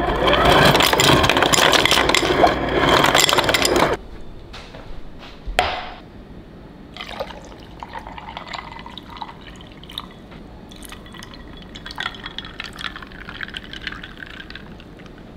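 Liquid pouring and filling a container for about four seconds, stopping abruptly, followed by a sharp knock and then quieter light clinks and handling sounds.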